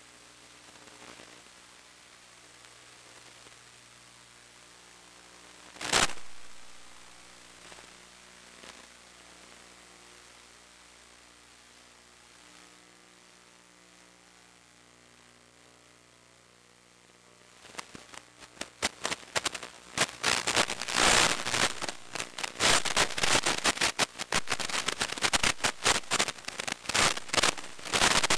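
Analog FPV video receiver's audio channel: a steady electrical hum with hiss, one sharp loud crackle about six seconds in, then from about eighteen seconds a dense, irregular crackle of radio static as the 1.3 GHz video link breaks up.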